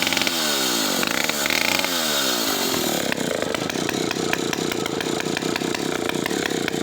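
Partner R11 90cc two-stroke chainsaw engine running. It is revved and allowed to fall back twice, then settles to a steady idle about three seconds in.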